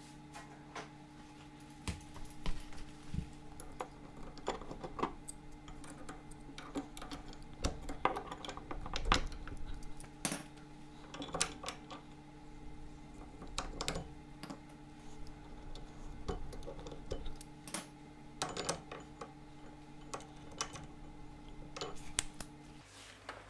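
Metal brake parts, bolts and hand tools clinking and clanking at irregular intervals while a brake caliper and adapter bracket are test-fitted to a front hub.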